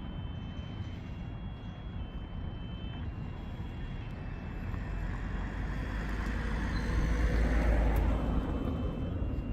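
A road vehicle passing close by, growing louder to a peak about two-thirds of the way through and then fading, over a steady low traffic rumble.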